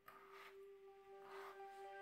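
Quiet background music holding a single sustained note. Two faint soft swishes of a kitchen knife cutting through raw potato come about half a second and a second and a half in.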